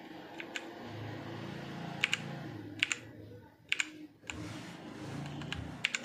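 Key presses on a Portronics Hydra 10 mechanical keyboard with brown switches: scattered sharp clicks, several coming in quick pairs as Fn-key combinations are pressed to change the RGB backlight mode.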